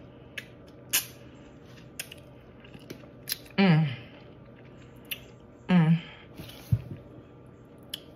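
A person sucking and biting on a lemon wedge: a string of sharp wet mouth clicks and smacks, with two short wordless vocal sounds from the sourness, about three and a half seconds in (falling in pitch) and near six seconds.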